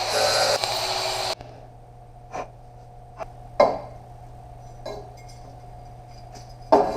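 Shop sounds: a loud rushing hiss that cuts off abruptly about a second in, then a steady hum with scattered light clinks and knocks of metal parts being handled.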